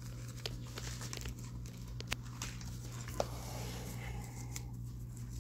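Clear plastic packaging and the paper-backed film of a watch screen protector being handled, crinkling, with a few light clicks scattered through it.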